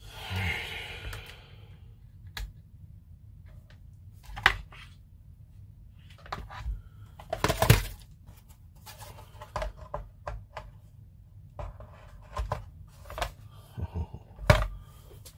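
Irregular clicks and light knocks of small parts, wires and tools being handled on a workbench, with a short rustle at the start. The two loudest knocks come about halfway through and near the end.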